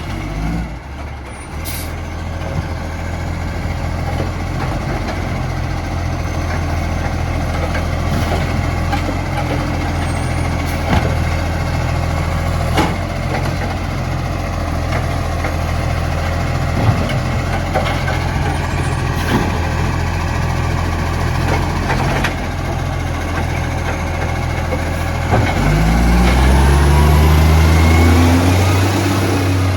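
Garbage truck engine running with a leaking exhaust, a steady low pulsing note with scattered knocks. About 25 s in it revs up with a rising whine, then eases back down near the end.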